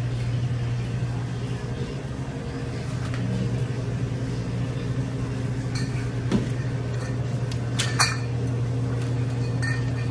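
A steady low hum with a few sharp clinks, the loudest two about six and eight seconds in.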